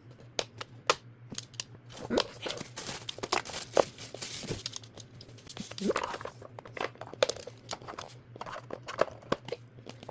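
Packaging crinkling and tearing, with scattered clicks and knocks.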